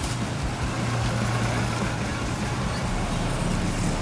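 Street traffic noise, with a motor vehicle's engine running past as a steady low hum, loudest about a second in.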